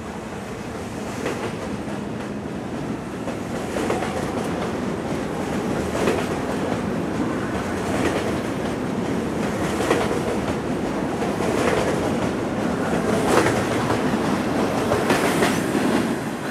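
R42 subway train pulling out of a station, its wheels clattering over rail joints in sharp knocks about every two seconds, getting louder and slightly quicker as the train gathers speed.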